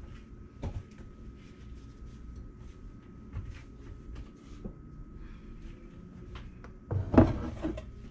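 A few light knocks and handling sounds, then, about seven seconds in, a wooden tray holding a filled silicone soap mold is set down on the countertop with a cluster of several loud wooden knocks.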